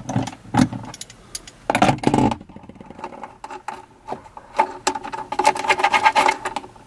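A hand wrench clicking and clinking on metal bolts as they are loosened in the floor of a truck's center console bin. The clicks are scattered at first, with a louder cluster about two seconds in, and turn into a quick, even run of clicks near the end.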